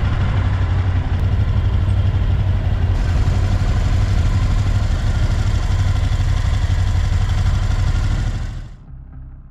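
Moto Guzzi V-twin motorcycle engine idling close by, a loud steady low rumble that fades away near the end.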